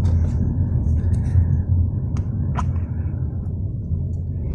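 Steady low rumble of a car driving, heard from inside the cabin, with a few faint clicks and rustles.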